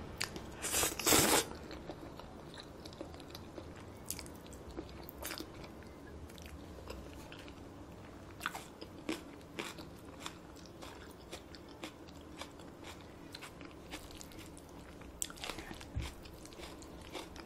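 Close-miked eating of soggy spicy cold noodles: a loud slurp about a second in, then quiet chewing with soft wet mouth clicks, and more slurping and bites near the end.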